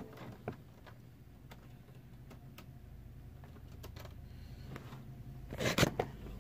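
Scattered light clicks and taps of small objects being handled, over a faint low hum, then a louder burst of knocks and rustling about a second before the end as the camera itself is picked up and moved.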